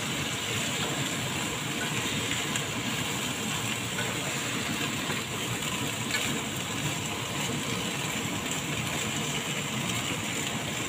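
Chicken feet frying in a nonstick pan, a steady sizzle as they are turned with a silicone spatula.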